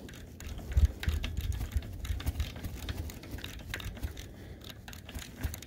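Irregular light clicks and taps of hand tools working the just-loosened oil drain bolt on a Harley-Davidson Milwaukee-Eight, over a low rumble.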